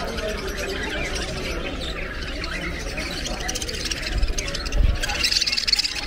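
A crowd of caged budgerigars chirping and chattering, with many short high chirps overlapping. A couple of low thumps come about four and five seconds in.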